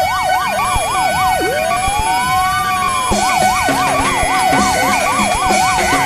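Electronic siren switching between a fast yelp, about four up-and-down sweeps a second, and one slow wail that rises and falls near the middle, over a steady held tone. A rhythmic beat joins about three seconds in.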